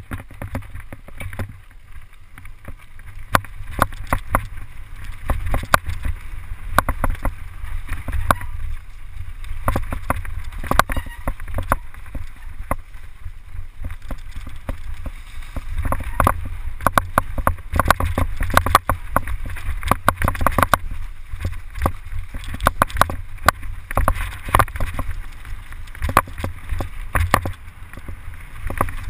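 Mountain bike ridden fast down a bumpy dirt forest trail: a steady wind rumble on the camera's microphone, with frequent irregular rattles and knocks as the bike jolts over the ground. It grows louder over the first few seconds as speed builds.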